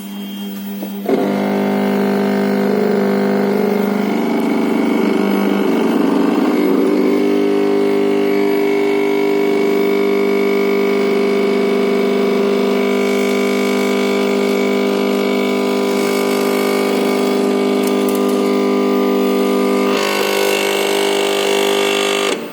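A MakerBot 3D printer malfunctioning: its mechanism makes a loud, steady droning buzz with a strong pitched tone, the "terrible sound" it gives once heating is done and it starts moving. The tone wavers over the first several seconds, then holds steady and cuts off suddenly near the end.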